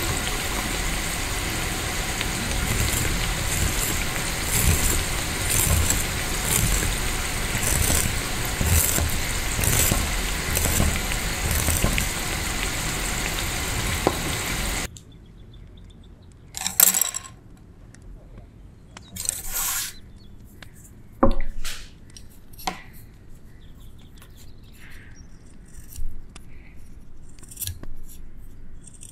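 Chicken skewers deep-frying in hot oil, bubbling and crackling steadily. About halfway through it cuts off suddenly, and a few quieter swishes and light wooden clicks follow as bamboo skewers are handled on a wooden board.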